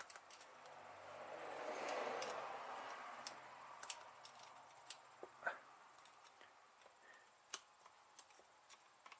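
Faint handling noise around a starter motor on the bench: a soft rustle swelling and fading in the first few seconds, then scattered light clicks, as leads and tools are moved about for a solenoid jump test.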